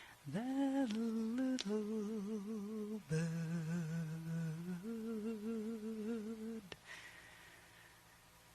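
A voice humming a slow wordless melody in long held notes with vibrato. It stops about seven seconds in, leaving faint room tone.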